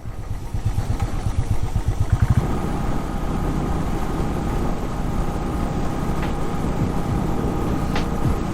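Royal Enfield Classic 350's single-cylinder engine running as the motorcycle is ridden slowly along a rough road, with an uneven beat for the first couple of seconds, then steadier.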